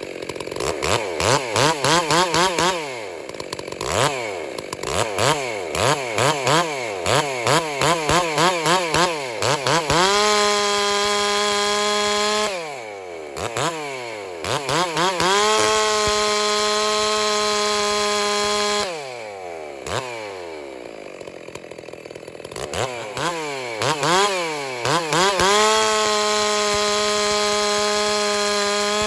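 Ported Stihl 660-clone two-stroke chainsaw with a 28-inch bar, blipped quickly up and down for several seconds. It is then held at a steady full-throttle pitch three times, for a few seconds each, as the chain cuts wood, dropping back to lower revs and blips in between.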